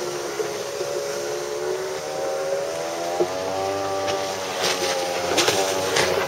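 Polaris MSX 140 personal watercraft's freshly rebuilt two-stroke engine running under way and being broken in, its pitch rising and then falling in the middle. A few sharp knocks come near the end.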